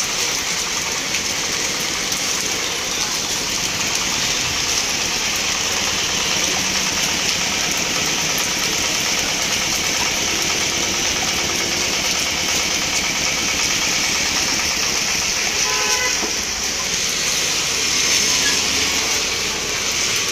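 Heavy rain falling on a wet street, a steady hiss. A vehicle horn toots briefly about three-quarters of the way through.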